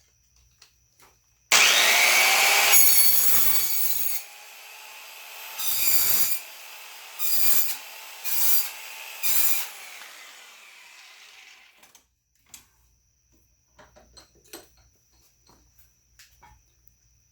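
Electric double-cut metal shear starts suddenly and runs while cutting through a thick piece of aluminum. It is loudest for the first few seconds, then runs on lower with four short loud bursts as the blades bite, and stops abruptly after about ten seconds. A few light knocks follow.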